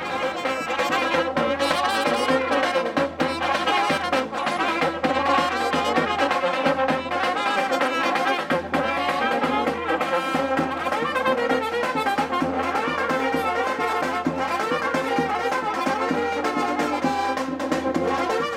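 Brass band playing: trumpets and a horn over a bass drum.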